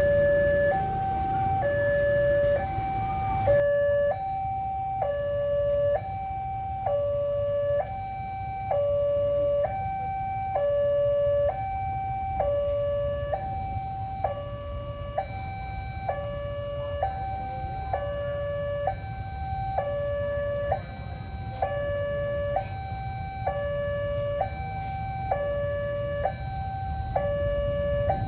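Railway level-crossing warning alarm sounding a steady two-tone alternation, a higher and a lower note of about half a second each, repeating evenly over a low rumble.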